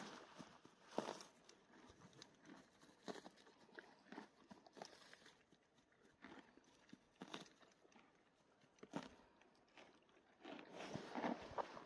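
Faint, irregular footsteps: sparse short taps, about one a second, with a louder cluster of taps and scuffs near the end.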